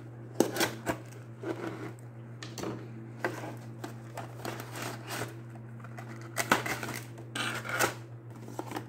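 A cardboard figure box being opened by hand and a clear plastic blister tray slid out of it: irregular rustles, scrapes and small clicks of cardboard and plastic.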